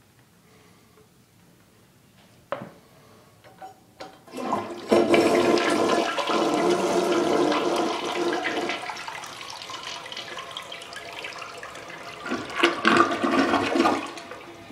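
A 1992 American Standard Cadet elongated tank toilet flushing. A click comes about two and a half seconds in, then water rushes into the bowl about four seconds in and swirls, easing off after several seconds. A second, louder surge comes near the end as the bowl empties.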